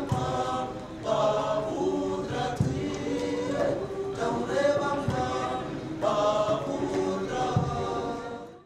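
A youth choir of mixed boys' and girls' voices singing together in harmony, fading out near the end.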